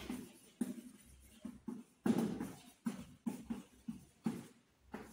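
Chalk writing on a blackboard: an irregular series of short taps and scrapes as letters are formed, with one longer stroke about two seconds in.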